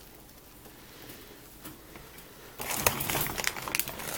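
Faint clicks, then a sudden loud rustling and crinkling with sharp crackles starting about two and a half seconds in.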